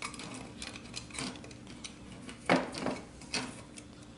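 Small clicks and rattles of an extension cord and cable clamp being handled against a steel electrical box, with a sharper metallic knock about two and a half seconds in and a couple of lighter knocks after it.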